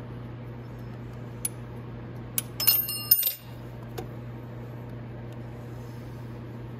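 A few light metal clicks, then a quick cluster of clinks with a short bright ring about two and a half to three seconds in: a hex key and loosened brake caliper bolts knocking against the caliper and its mount. A steady low hum runs underneath.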